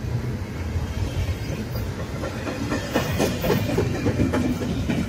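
Double-stack intermodal freight train cars rolling past close by with a steady low rumble. From a little over halfway through, the wheels clack and knock over the rail joints in quick succession.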